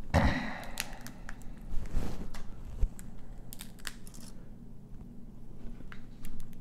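Dungeness crab shell cracking and snapping as it is pulled apart by hand: a string of short, sharp cracks, the loudest near the start and at about two and three seconds in.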